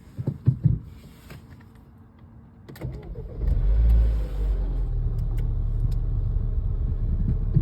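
A few clicks, then a Mini Cooper S engine cranks, fires about three seconds in, flares briefly and settles into a steady idle. It is the first start after a timing chain replacement, and it catches and runs.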